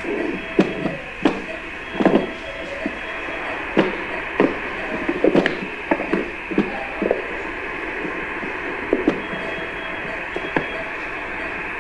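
Doppler ultrasound probe's audio output: pulsing whooshes of arterial blood flow, about one a second, over a steady hiss, becoming sparser after about seven seconds.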